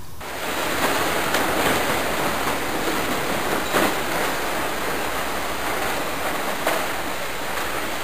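Steady rushing noise, with a few faint clicks as the ignition lock cylinder is handled and drawn out of the steering column.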